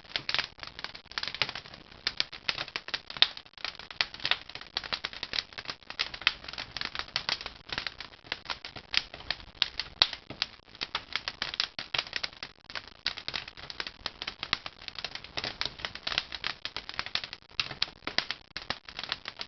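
Burning firewood crackling and popping in a traditional wood-fired kiln, a dense, irregular run of sharp crackles.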